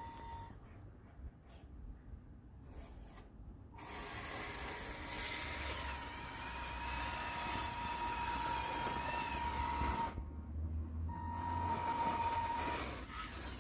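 Tamiya Scania 6x4 radio-controlled truck's electric drive whining as it pushes snow with its front plow: a steady high whine that cuts out and comes back several times as the throttle is worked, over a hissing scrape of plow and tyres through the snow.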